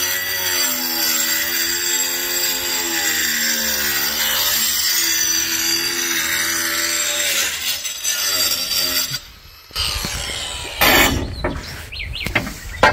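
Angle grinder cutting a roof tile: a steady high grinding, the motor's whine dipping and rising in pitch as the disc is pressed into the tile. It stops about nine seconds in, followed by low rumble and a few knocks.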